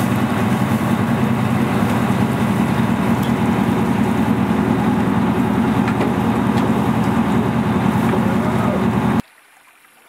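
Boat engine running steadily under way, with water and wind noise over it; the sound cuts off suddenly about nine seconds in.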